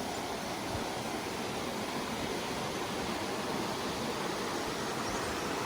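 Water rushing steadily, a continuous even hiss with no rise and fall.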